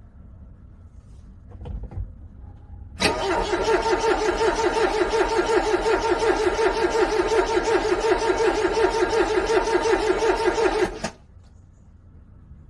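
Cold car engine cranking on the starter motor for about eight seconds, a fast even chug of about five compression strokes a second, without catching; the cranking stops abruptly. A short knock sounds about a second before it begins.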